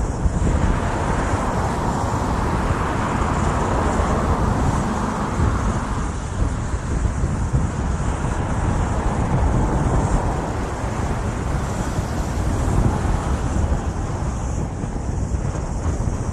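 Road traffic passing close by, swelling and fading twice, over a steady rumble of wind on the microphone.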